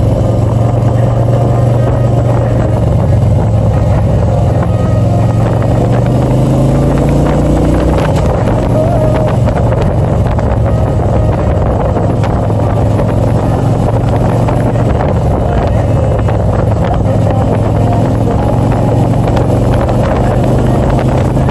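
Touring motorcycle engine running steadily on the move; its revs climb for a couple of seconds about six seconds in, then hold.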